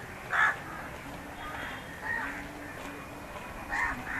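Crows cawing: three short calls a second or two apart, the first the loudest.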